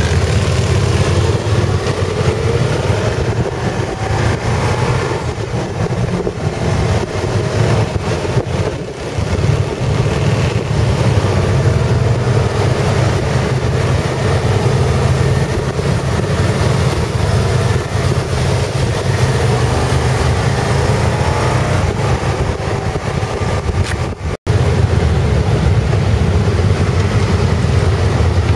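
Motorcycle engines running steadily during a slow group ride, heard from on board a moving motorcycle as a continuous low engine drone. The sound cuts out for an instant near the end.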